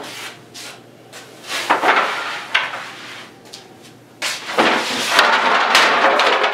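Long walnut boards being handled on a table saw and bench, wood knocking against wood and the saw table a few times. About four seconds in comes a louder, longer clatter and scrape as a board is swung up and moved.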